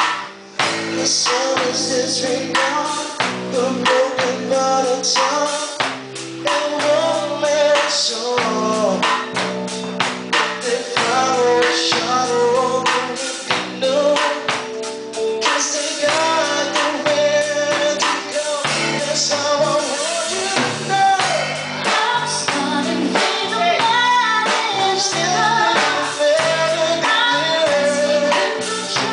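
Live amateur band playing a song in a room: acoustic drum kit with cymbals keeping a steady beat, electric guitar through an amplifier, and a woman singing into a microphone.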